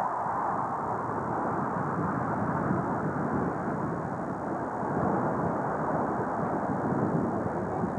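Jet engine roar from a formation of four Blue Angels A-4 Skyhawks, a steady rushing noise with no distinct tones.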